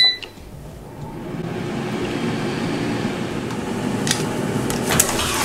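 Hosome air fryer's touch panel beeps once as it is started, then its fan spins up over about a second into a steady whir. A couple of light clicks come near the end.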